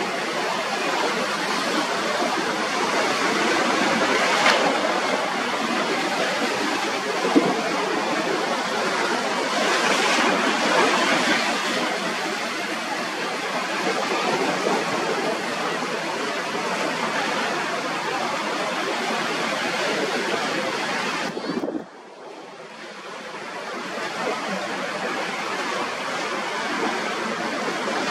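Steady rushing noise of breaking waves and wind off choppy sea, with no distinct engine note. It drops away abruptly about three-quarters of the way through, then builds back up.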